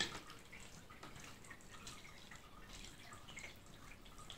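A spoon stirring and folding chopped chicken in curry sauce in a ceramic dish, faintly, with small soft ticks now and then.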